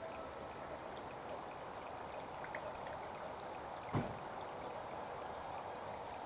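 Koi pond water trickling and splashing steadily, with one sharp plop on the water's surface about four seconds in, as food or a koi breaks the surface and sends out rings.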